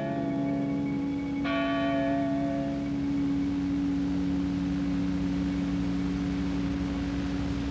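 Film score for a silent film: a low held drone with a bell-like chime struck about a second and a half in, ringing out and fading over the steady drone.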